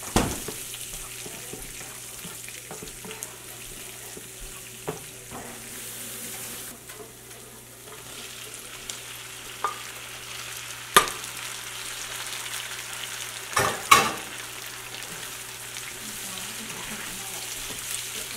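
Sauce sizzling in a nonstick frying pan while a wooden spatula stirs it. Partway through, chopped tomatoes are scraped in from a bowl, with a few sharp knocks against the pan about two-thirds of the way in.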